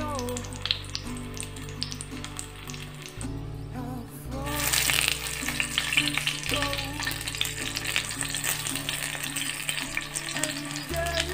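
Two sausages frying in olive oil in a cast-iron pan: a steady sizzle that gets louder about four and a half seconds in. Light clicks and scrapes come from two wooden spatulas turning them.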